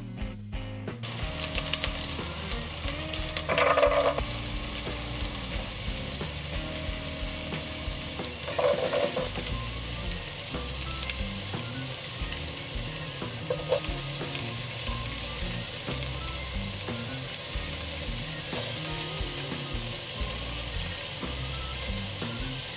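Chopped vegetables sizzling as they fry in hot oil in a nonstick pot, with faint background music underneath. Three brief louder bursts come about five seconds apart.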